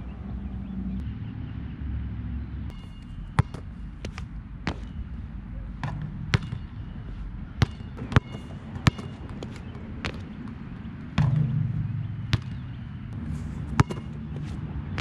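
A Nike Jordan Hyper Grip 4P basketball bouncing: about nine sharp single impacts at irregular intervals, over a steady low rumble.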